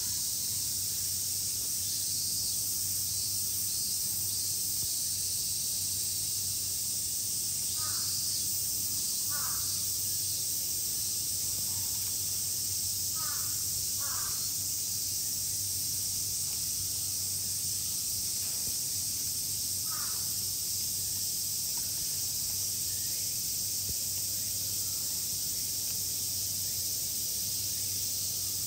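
A crow cawing about five times, two pairs of calls and then a single one, over a steady high-pitched hiss.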